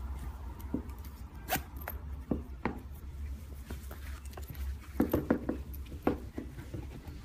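Metal zipper and soft sheepskin of an UGG-style boot being handled: scattered short clicks and rasps of the zip, with a quick run of them about five seconds in, over a low steady hum.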